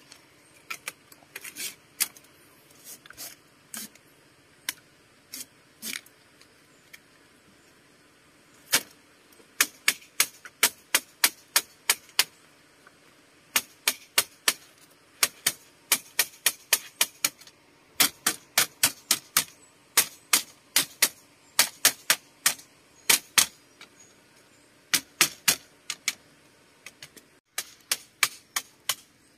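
Sharp taps or knocks, scattered at first, then coming in quick runs of two or three a second with short pauses between runs.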